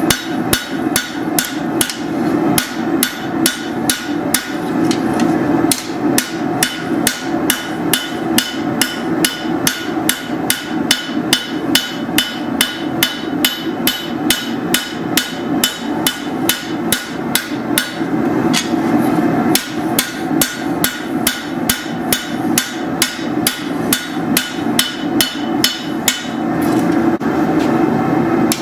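Steel being hammered on an anvil in forging, steady rhythmic blows at about three a second, over a steady low rumble.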